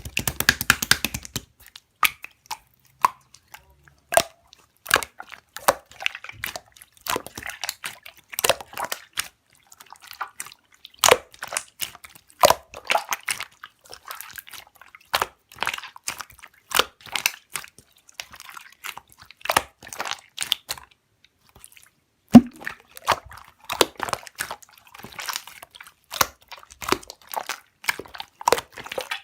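Slime being squeezed, folded and pressed by hand, giving irregular sticky pops, clicks and crackles. The sounds pause briefly about three-quarters of the way through, then start again with a sharp pop.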